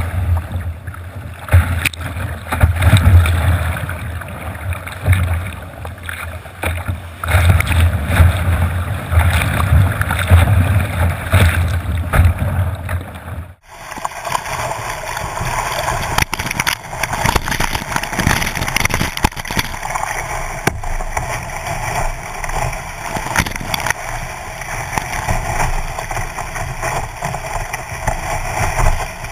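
Whitewater rapids rushing and splashing over a kayak and its low-mounted camera. The first half has a heavy low rumble; after a brief dropout about halfway through, it becomes a brighter, steadier rush.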